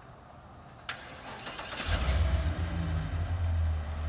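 2007 GMC C4500's 8.1-litre Vortec V8 gasoline engine being remote-started: a click about a second in, a brief crank, then it catches just under two seconds in and settles into a steady idle.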